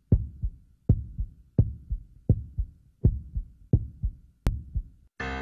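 Heartbeat sound effect: a steady double thump (lub-dub) repeating about every three-quarters of a second. A single sharp click comes near the end, and music comes in right at the end.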